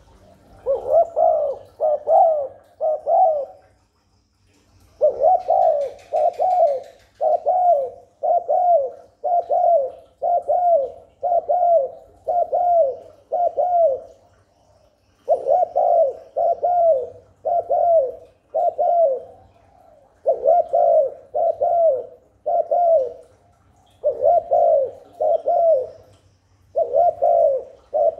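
Spotted dove giving its "gù" bowing coo: short coos about two a second, in runs of several notes with brief pauses between runs.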